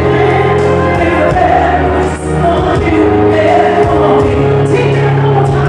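A singer performing a soul song live into a microphone over loud amplified music, with a steady bass line under the voice.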